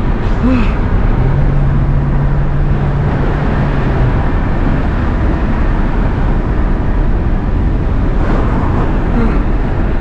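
Car being driven, heard from inside the cabin: steady engine and road noise. A steady low hum holds for about three seconds near the start, then fades back into the noise.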